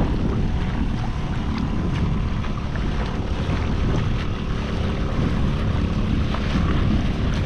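Wind buffeting the microphone, with the wash of water around a kayak.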